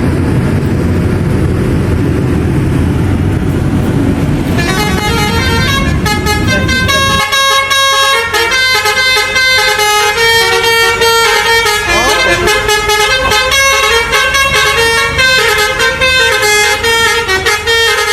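A bus engine runs with a low rumble; about four seconds in, a multi-trumpet telolet air horn starts playing a quick tune of shifting notes, and the rumble drops away a few seconds later.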